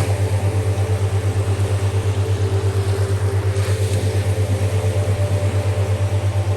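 A boat's engine idling with a steady low chugging throb, about seven or eight beats a second, over the wash of sea water, which swells briefly about halfway through.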